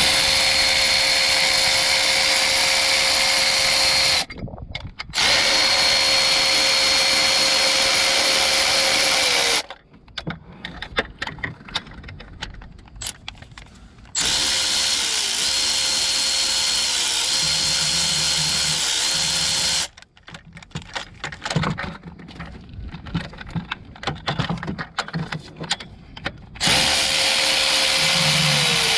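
Electric power driver spinning a bolt out of the engine-mount bracket through a long socket extension. It runs in four spells of several seconds each, as a steady whine whose pitch dips briefly as the load comes on. Between the spells there are lighter clicks and rattles of the tool and socket being handled.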